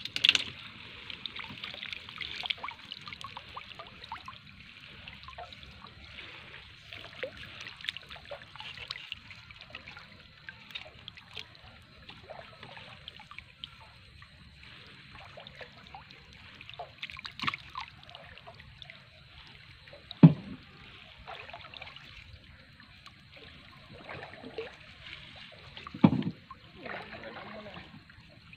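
Water trickling and dripping from a fishing net as it is hauled by hand out of the water, with a few sharp knocks, the loudest about twenty and twenty-six seconds in.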